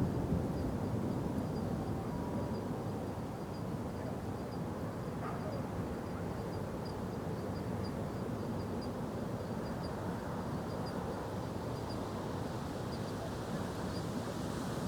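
Steady low rumbling background noise, with faint high chirps scattered irregularly throughout.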